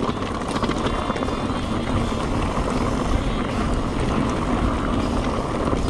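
Electric mountain bike's tyres pushing through a deep stream crossing, a steady churning splash of water.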